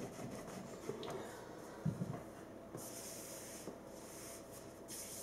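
Faint scraping of a rolling pin rolling out fondant icing on a worktop, with a soft knock about two seconds in and a hissier stretch of rolling from just under three seconds to about five seconds in.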